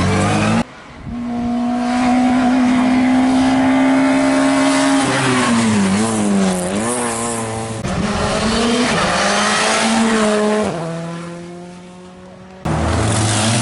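Rally car engines flat out on a tarmac stage, from several passes cut together. An engine is held at high revs for a few seconds, then the revs drop and blip up and down through downshifts and a corner. It pulls away at high revs again and fades out, and another car's engine cuts in abruptly near the end.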